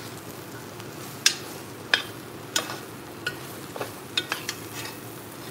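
Metal spoon stirring chopped squash and carrots in an enamelled cast-iron pot, with sharp knocks and scrapes against the pot about every second, over a low steady sizzle of the vegetables frying in the hot curry base.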